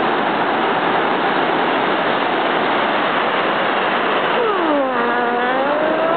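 Steady rush of surf on the beach. About four seconds in, a person's drawn-out voice joins, sliding down in pitch, holding, then rising.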